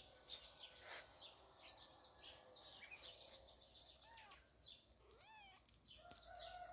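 Kittens mewing faintly: two short mews that rise and fall in pitch, about four and five seconds in, among faint high chirps. A faint steady tone begins near the end.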